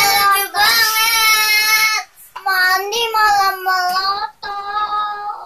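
A child singing high, held notes in three long phrases, the first sliding up at its start.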